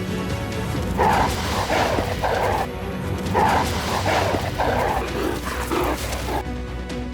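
A series of about nine short, harsh animal calls, each a fraction of a second long, in two quick runs over background music.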